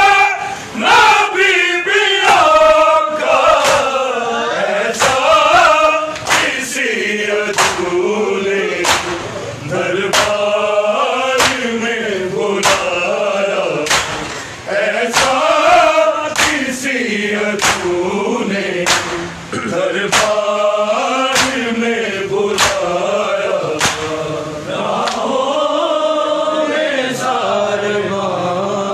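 A crowd of men chanting a Muharram lament (nauha) in unison, the melody rising and falling in long phrases. From about six seconds in, sharp hand slaps on bare chests (matam) keep a steady beat, a little more than one a second.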